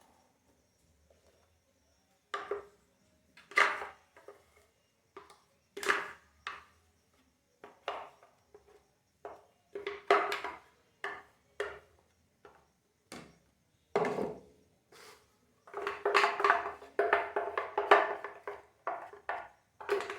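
Kitchen utensils knocking and scraping against a container, single knocks a second or two apart that turn into a busy clatter in the last few seconds.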